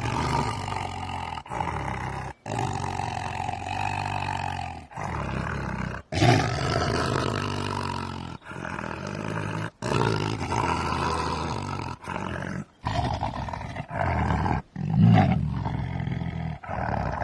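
A string of short roars, each one to three seconds long, played back to back with abrupt cuts between them.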